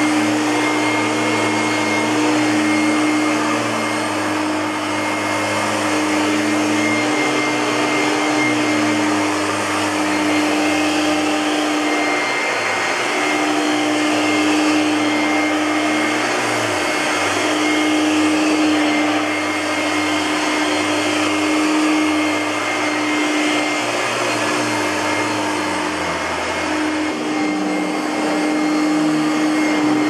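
1991 Kenmore heavy-duty twin-fan upright vacuum cleaner running steadily while pushed back and forth over carpet, a constant motor hum with a steady whine over the airflow. It is fitted with a bad drive belt, which the owner thinks may be one that is too large.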